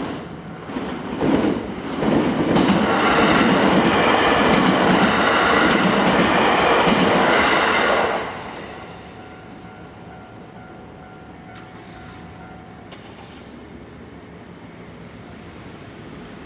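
A train passes over the level crossing: wheels clatter over the rails, building over the first couple of seconds, staying loud for about six seconds, then dying away.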